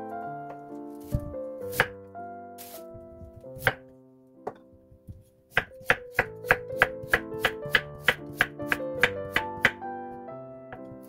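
Chef's knife slicing a carrot on a wooden cutting board: a few separate knocks in the first half, then from about halfway a regular run of knife strokes against the board, about three a second. Background piano music plays throughout.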